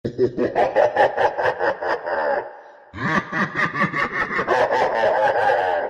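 Loud laughter, a rapid run of 'ha-ha' pulses in two long bouts with a short pause for breath about two and a half seconds in; it starts abruptly.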